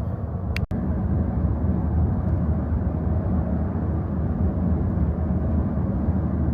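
Steady road and engine rumble inside a moving car's cabin at highway speed, with a brief dropout less than a second in.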